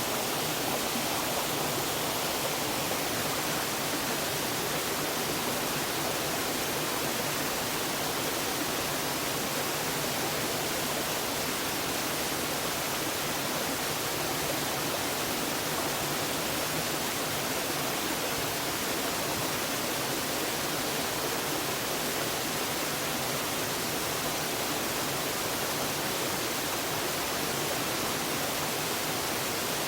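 Waterfall: falling water making a steady, even rushing.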